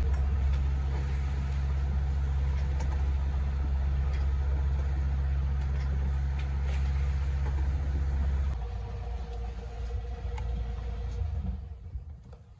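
Sailboat's inboard engine running steadily while motoring, a low, even hum. About eight seconds in the sound changes abruptly to a rougher, quieter rumble that dies away near the end.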